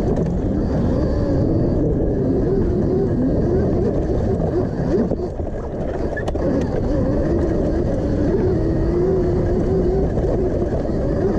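Electric motor of a Honda CRF150R dirt bike converted to electric drive, ridden over a rough dirt single track: a whine that wavers up and down with the throttle, over a constant low rumble from the ride.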